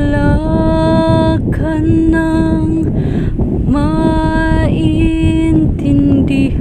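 A woman singing long, steadily held notes in a Filipino ballad, over a rough low rushing noise.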